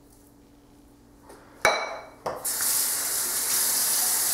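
A single sharp clink of a hard object set down on the sink counter, with a short ring, about a second and a half in. Moments later a tap is turned on and water runs steadily into the sink.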